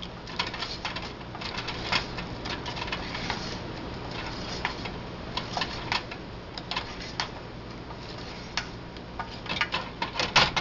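Wooden spoon knocking and scraping against a small metal saucepan in irregular clicks as battered chicken bites are tumbled in hot sauce, over a steady low hum. A cluster of louder knocks comes near the end, one with a brief ring.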